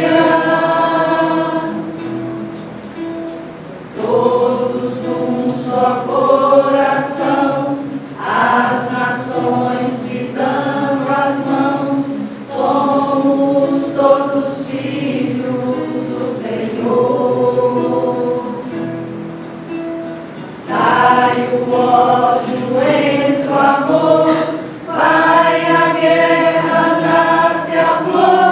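A small mixed choir of women's and men's voices singing together in sustained phrases, with short breaks between lines.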